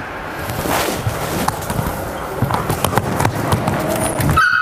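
Footsteps and scattered clicks and knocks of a person and a dog walking on a lead, over a steady hiss.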